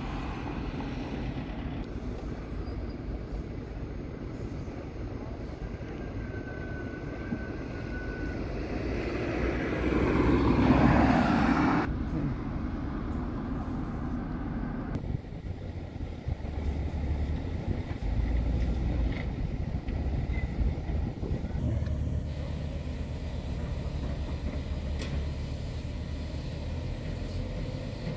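Construction-site noise: a steady low engine rumble from heavy machinery over a general outdoor noise haze, swelling louder about ten seconds in and then dropping abruptly.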